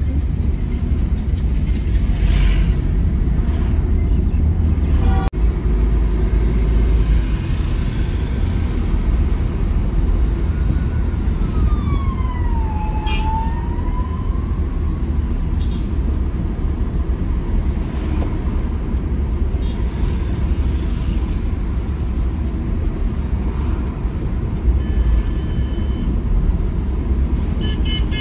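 Camper van driving, a steady low rumble of engine and road noise. About halfway through, a brief tone slides down and back up, and a few short high beeps sound near the end.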